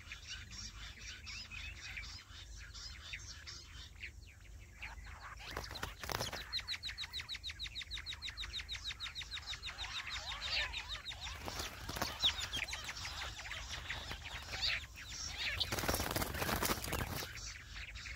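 Jungle bush quails calling: a fast run of high, evenly repeated notes, about eight a second, for some five seconds in the middle, with scattered chirps around it. Short bursts of wing flapping come just before the run and again near the end.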